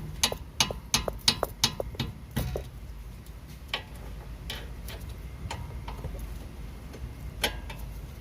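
Ratchet wrench clicking while a bolt is worked loose: a quick run of sharp metallic clicks over the first two and a half seconds, then single clicks every second or two.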